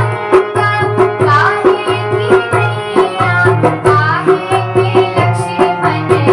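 Hindi devotional bhajan music: a steady hand-drum rhythm of about three strokes a second under melodic instrument lines that bend in pitch.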